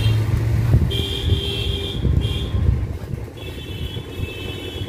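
Road traffic: a vehicle engine hums for about the first second, then a horn sounds three times, the last one long.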